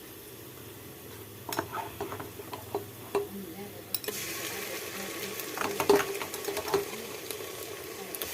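A spoon scraping and knocking against a cooking pan while food is stirred. About four seconds in, a frying sizzle starts and carries on under further stirring knocks.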